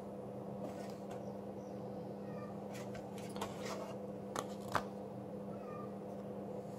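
Corsair HX1200 power supply's metal case being turned over in the hands, giving a few light clicks and knocks, the sharpest two just past the middle. A steady low hum lies under it, and two faint short high cries come in the background.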